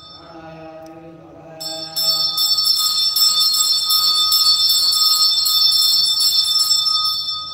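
Hand bell rung rapidly and continuously as part of a temple puja, starting about a second and a half in and stopping near the end.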